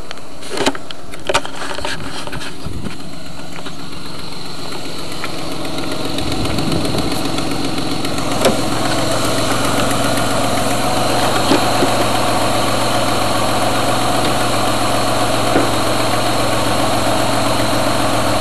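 Truck engine idling steadily, with a faint tick from an exhaust leak at the front exhaust manifold. A couple of sharp clicks come about a second in, and the engine sound gets louder about six seconds in.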